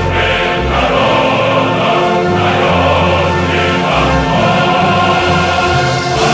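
Background music with a choir singing long held notes over a changing low bass line, with a sharp crash near the end.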